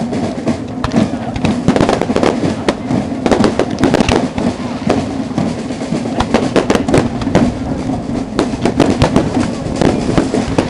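Display fireworks going off in rapid, irregular succession: a dense run of sharp bangs and crackles, several a second, with no pause.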